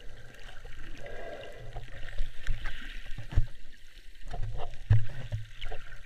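Muffled underwater sound heard through an action camera's waterproof housing: water swishing and bubbling, with scattered clicks and a few low knocks as a hand handles the case.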